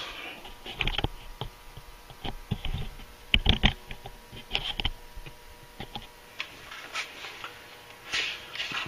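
Handling noise: scattered light clicks and taps of things being moved and touched, louder and closer together about three and a half seconds in, with a low rumble over the first few seconds.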